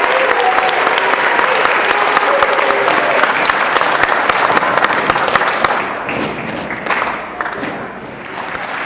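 Audience applauding, a dense patter of many hands clapping with a few voices among it, thinning out and dying down about six seconds in.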